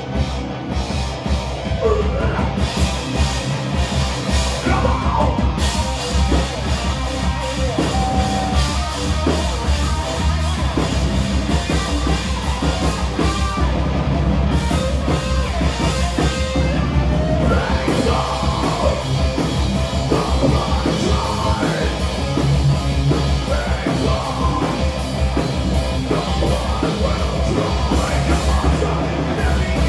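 Heavy metal band playing live: drum kit and guitars, with yelled vocals over them.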